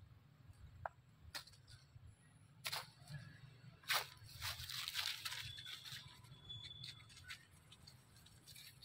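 Quiet outdoor ambience with a low rumble, a few scattered sharp clicks and a short rustle about four to five seconds in; a faint thin high tone follows briefly.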